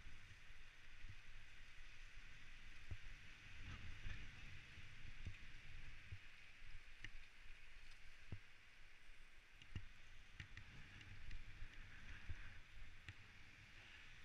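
Specialized Stumpjumper mountain bike riding fast down a rough dirt trail: a fluctuating low rumble of tyres and frame vibration over a steady hiss, with scattered sharp knocks and rattles as it hits bumps.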